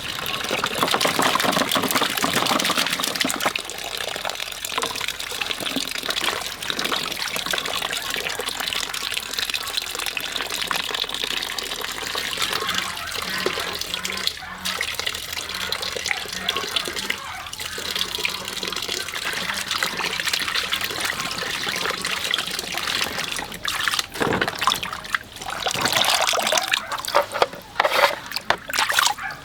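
Running water splashing steadily, turning choppier and more uneven near the end.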